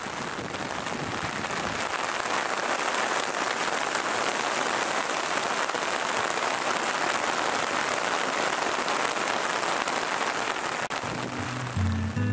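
Heavy rain falling on a lake and its sandy shore: a steady, dense hiss that swells over the first couple of seconds and then holds even. Acoustic guitar music comes in near the end.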